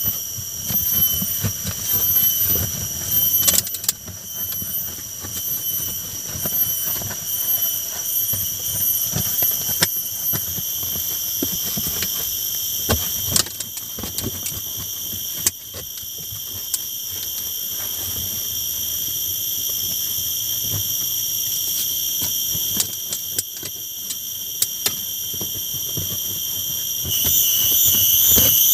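Steady, shrill insect drone, several high tones held together. It shifts about ten seconds in and turns louder and warbling near the end, over scattered light knocks and rustling.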